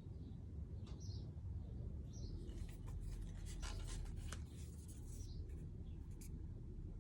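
Small bird chirping a few times over a steady low rumble, with a burst of scratchy clicks lasting about two seconds near the middle.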